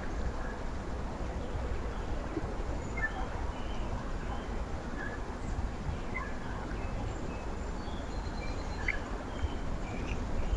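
Small birds chirping in short, scattered calls throughout, over a steady low background rumble.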